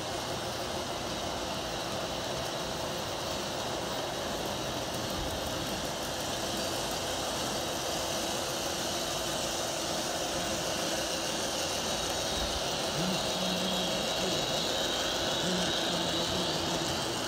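Model trains running on the layout's tracks: a steady rolling rumble and whir of wheels and electric motors.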